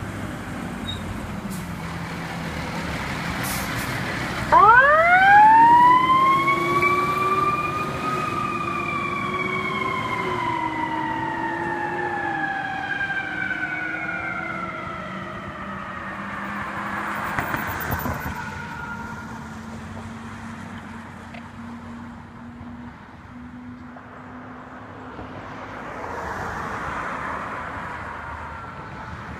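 Fire engine's mechanical Q siren winding up sharply about four seconds in, then slowly winding down in pitch over roughly twelve seconds. Road and traffic noise runs underneath.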